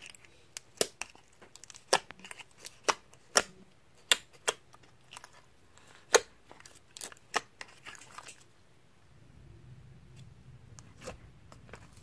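Fingers kneading and mixing soft slime, making irregular sharp clicking pops about one or two a second; the pops thin out about eight seconds in.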